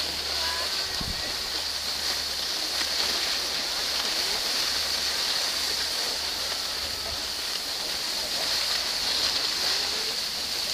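Steady hiss of skis sliding over packed, groomed snow as the skiers glide downhill.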